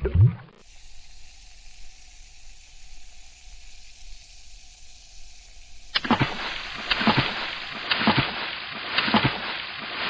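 Water sound effect: a quiet, steady fizzing hiss of bubbles for about five seconds, then louder splashing and bubbling water with repeated sharp splashes from about six seconds in.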